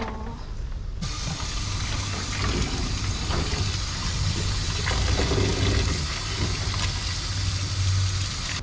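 Cold tap water running steadily into a stainless steel colander of boiled noodles as gloved hands rinse them, starting about a second in.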